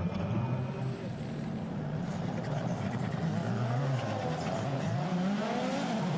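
Rally car engine revving hard, its pitch rising and falling several times as the driver works the throttle, over a steady rush of noise.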